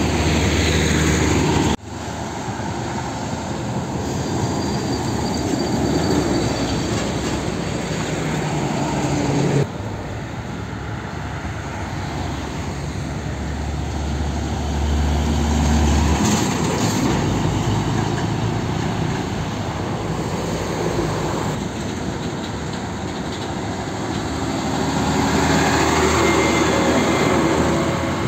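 Heavy diesel tanker trucks driving past, engines running with tyre and road noise. In the middle a Hino Ranger's engine runs with a steady low note. The sound changes abruptly about two seconds in, near ten seconds and around twenty-one seconds.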